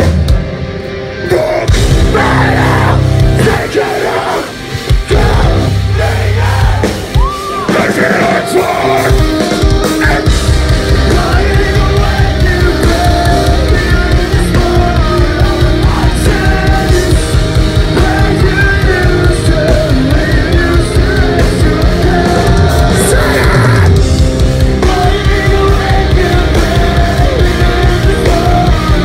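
A post-hardcore band playing live through a festival PA, heard loud from inside the crowd, with the vocalist singing and yelling into a handheld mic. The first ten seconds are broken up, with brief drops, and the full band then comes in with fast, steady drumming.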